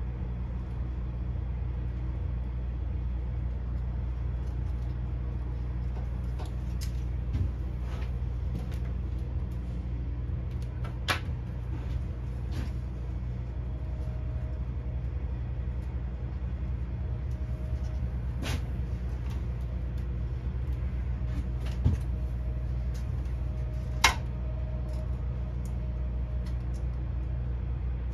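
Steady low machine hum throughout, with a few sharp clicks and taps from fiber tubes being handled and fitted into a plastic splice closure; the loudest click comes near the end.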